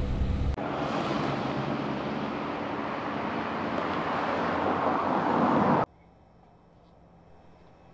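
Car on the move: a deep rumble gives way, about half a second in, to rushing tyre and road noise that grows louder. It cuts off suddenly about six seconds in, leaving only a faint hiss.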